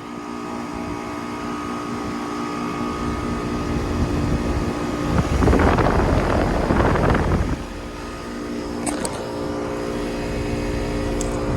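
Outdoor air-conditioner condenser units running: a steady hum made of several even tones from the compressors and fans. About five seconds in, a loud rushing noise swells for about two seconds and fades, and there are two brief clicks near the end.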